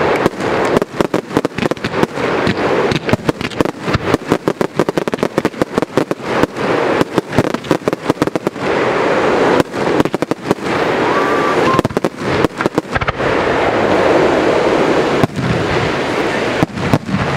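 Fireworks: aerial shells and multi-shot bombs going off in a dense, rapid run of bangs and reports, over a continuous crackling hiss.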